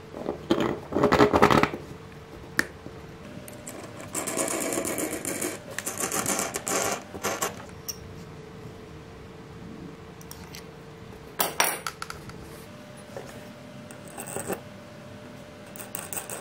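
Steel bolt, nut and adjustable wrench clinking and rattling against a 3D-printed plastic hub as the bolt is fitted and the nut tightened. The loudest clatter comes about a second in, followed by two stretches of fast rattling and then a single sharp clink past the middle.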